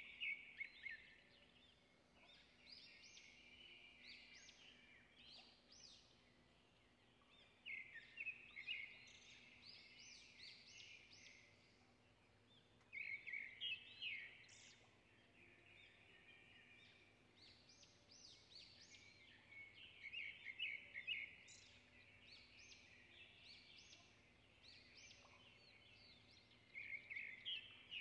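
Faint birdsong: bright chirping phrases that come in clusters about every six or seven seconds, over a faint steady hum.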